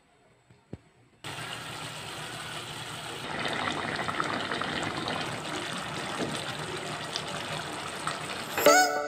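Chicken pieces boiling in coconut milk in a steel pot, a steady bubbling that starts just over a second in and grows louder about three seconds in. Background music comes in near the end.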